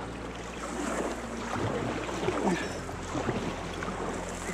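Kayak paddle strokes in calm water: the blades splash in and drip as the fishing kayak glides along, the strongest splashes about halfway through.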